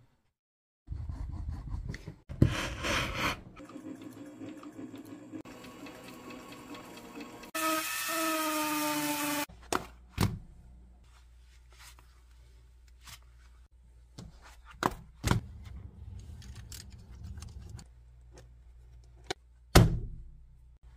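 Leather being handled, rubbed and creased by hand, with a squeaking stretch that falls in pitch partway through. Several sharp clicks follow, the loudest near the end.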